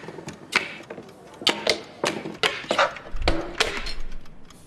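Foley sound effects played on a drum kit and hand props: a quick irregular run of sharp clicks, taps and knocks, some ringing briefly, with a low thud about three seconds in.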